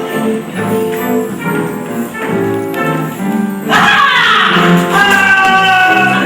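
Live musical-theatre number: singing with accompaniment, in short rhythmic notes. About two-thirds of the way through it gets suddenly louder, with a falling slide and then a long held note.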